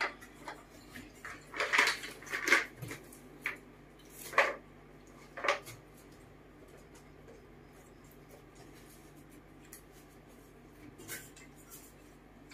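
A pet macaque clambering onto a wardrobe: a series of sharp knocks and clatters against furniture and plastic boxes over the first six seconds, the loudest about two and four and a half seconds in. After that only a faint steady room hum.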